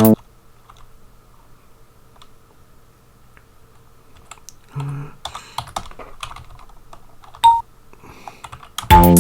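Computer keyboard keys tapped at intervals, entering notes into a tracker, with a short sampled note sounding about five seconds in and a brief higher note near seven and a half seconds. Loud playback of the tracker tune cuts in right at the end.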